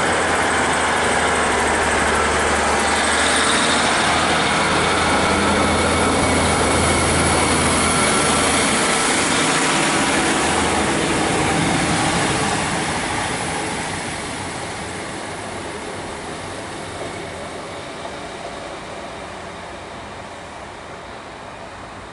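Class 150 Sprinter diesel multiple unit pulling away from the platform: its underfloor diesel engines running under power with a steady low drone as the coaches pass close by. A little past halfway the sound starts fading steadily as the train moves off.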